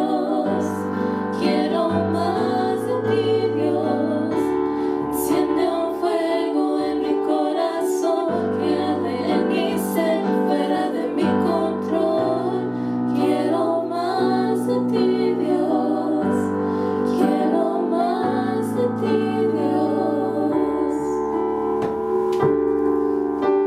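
Three women singing a worship song together into microphones over keyboard accompaniment. The singing stops near the end while the keyboard chords carry on.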